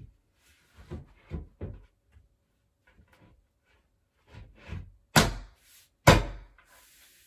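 The particleboard top panel of a flat-pack chest of drawers being set onto the carcass: soft knocks and rubbing as it goes into place, then two sharp, loud slaps about a second apart near the end as it is tapped down by hand to seat it.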